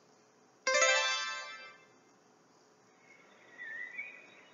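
A single bright chime, a struck or plucked note rich in overtones, rings out suddenly under a second in and fades away over about a second. Faint bird chirps follow near the end, part of the cartoon's garden background.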